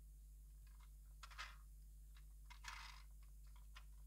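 Near silence over a low steady hum, with a few faint clicks and short rubs of a small plastic toy fire truck being turned in the hands; the longest rub comes near the end.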